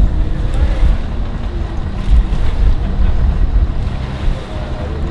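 A 60-horsepower outboard motor on a bass boat running, its propeller churning up water, with heavy wind noise on the microphone.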